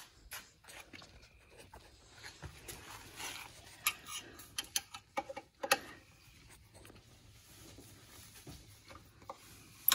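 Screwdriver working the screws out of a small ATV's rear brake drum cover: scattered light metallic clicks and scrapes, a few sharper clicks around the middle. The screws are not very tight.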